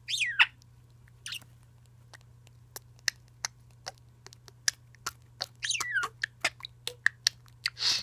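Budgerigar chattering: a quick downward-gliding chirp, then a scatter of small sharp clicks for several seconds, with a few more falling chirps about six seconds in and near the end.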